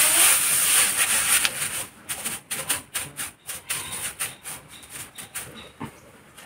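Dry chopped straw rustling and crackling as a hand rummages through it in a metal basin. It is loud and dense for the first two seconds, then breaks into scattered crackles that fade out.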